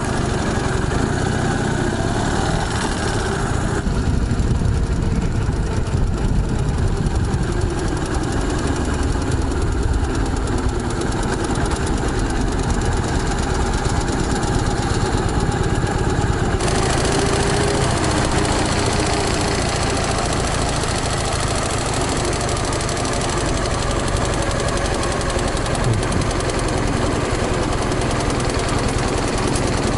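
Dnepr motorcycle's freshly rebuilt flat-twin engine running steadily under way, heard from the saddle while riding through traffic. The engine is being run in after the rebuild.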